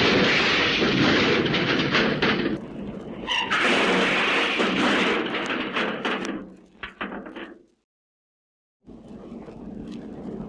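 Cartoon junk-crash sound effect: a long crash of clattering, tumbling junk in two big surges, thinning into scattered rattles and knocks that stop about eight seconds in. After a second of silence, another quieter crash sound starts.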